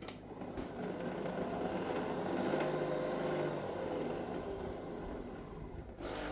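Nespresso Vertuo Next coffee machine running with a steady mechanical whir that swells and then eases off, changing character about six seconds in.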